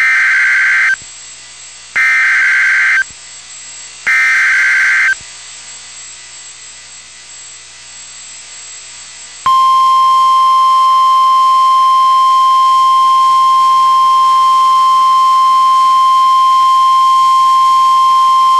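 NOAA Weather Radio EAS alert signal: three one-second bursts of buzzy SAME digital header data, two seconds apart, then after a pause of about four seconds the steady 1050 Hz warning alarm tone, one loud continuous beep. The header encodes the alert, here a flash flood warning, and the 1050 Hz tone signals a warning and switches on weather radio receivers.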